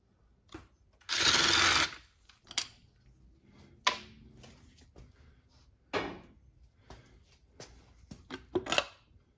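A power driver spins out a crankcase-cover screw for just under a second, then several sharp knocks and clicks follow from tools and metal parts on the engine.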